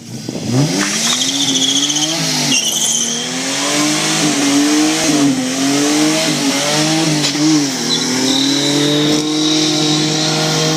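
Holden VL Commodore's RB30E 3.0-litre straight-six revving hard during a burnout. The revs climb about half a second in and are held high, wavering up and down. A high-pitched tyre squeal comes and goes over the engine as the rear tyres spin.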